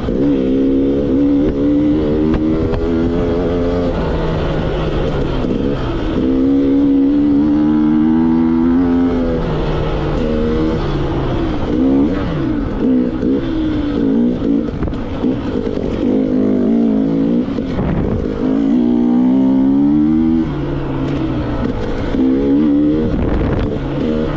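Two-stroke enduro motorcycle engine revving hard and unevenly, its pitch climbing and falling again and again as the throttle is opened and shut, with a brief drop in revs partway through.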